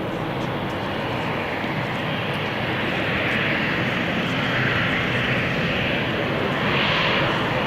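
Jet engines of an Embraer 195 airliner landing: the steady rush of its two General Electric CF34-10E turbofans, growing gradually louder.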